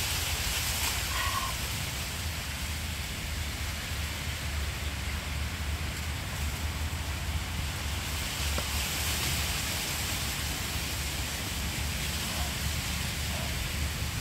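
Steady outdoor background noise: a low rumble under an even hiss, with no distinct event standing out.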